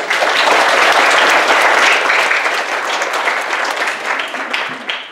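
Congregation applauding, many hands clapping together; the clapping fades out near the end.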